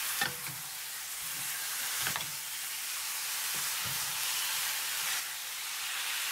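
Pork belly pieces sizzling in caramel in a hot pan as they are stirred with a wooden spatula: a steady sizzle, with a few short knocks of the spatula against the pan and meat.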